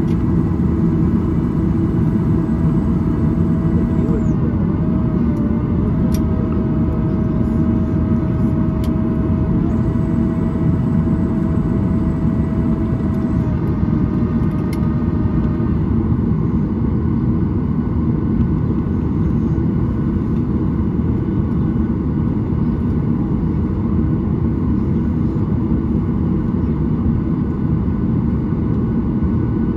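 Steady cabin rumble inside a Boeing 737-800 standing at the gate, with a thin steady whine that stops about 14 seconds in.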